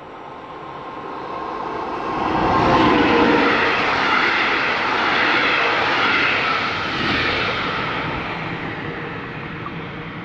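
Locomotive-hauled InterCity train with MÁV-Start coaches passing through a station without stopping. The rumble and wheel-on-rail noise build to their loudest about two to three seconds in as the front of the train goes by. The coaches then roll past with a steady rushing sound that slowly fades as the train pulls away.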